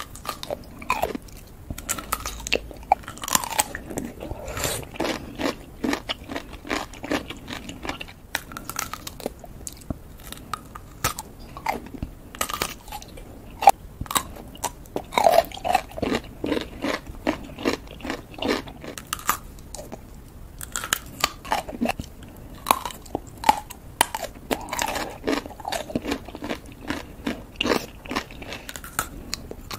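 Pickles being bitten and chewed close to the microphone: a run of crisp crunches and chewing clicks, irregular and close together.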